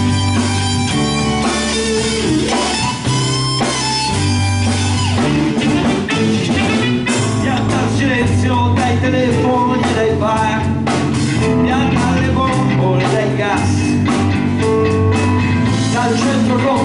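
A live rock band playing an instrumental passage: electric guitars, bass guitar and a drum kit, with a saxophone, at a steady level.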